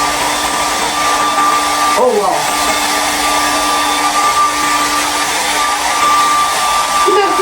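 Hand-held hair dryer running steadily: a rush of air with a steady whine through it, briefly broken about two seconds in.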